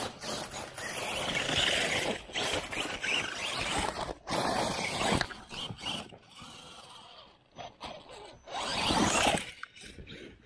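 RC rock bouncer climbing a rocky hill: bursts of spinning tires and whirring drivetrain with clattering over rock. It is loudest for the first five seconds, drops away, then comes back in one more loud burst near the end.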